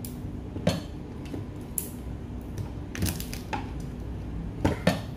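Steamed mud crab shell being cracked and pulled apart by hand over a plate: a series of about five sharp cracks and clicks, the two loudest close together near the end.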